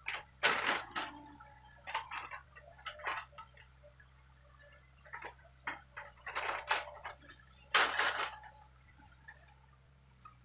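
Hitachi hydraulic excavator working at a distance: a low steady engine hum under irregular bursts of crackling and rustling, the loudest about half a second in and again near eight seconds.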